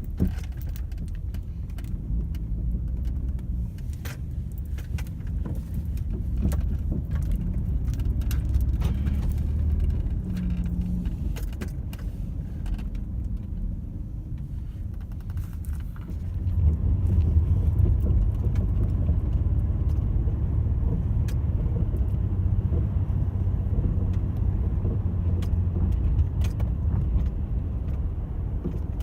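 Low road-and-engine rumble inside the cabin of a 1995 Dodge Intrepid on the move, with light clicking and rattling over the first half. The rumble grows louder about sixteen seconds in.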